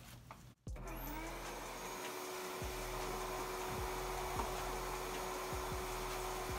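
Vacuum cleaner starting up about half a second in, its pitch rising briefly and then holding a steady whine as it runs on its blowing setting, blowing dust out of a car's engine bay. A few low bumps sound under it.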